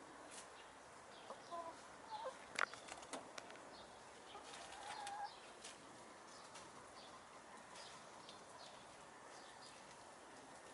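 Domestic hens foraging in dry leaves: a few soft, short hen calls, with a cluster of sharp clicks about two to three seconds in and a longer call near the middle.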